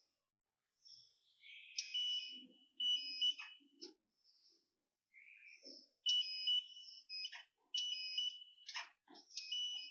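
Contractor's work noise: irregular bursts of short, high-pitched metallic screeches mixed with sharp knocks and clatter, broken by brief gaps.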